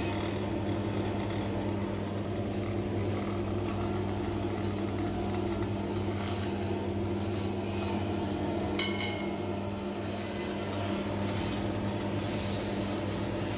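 Motor-driven screw oil expeller running steadily under load with a constant low hum as it presses seeds. A single short click comes about nine seconds in.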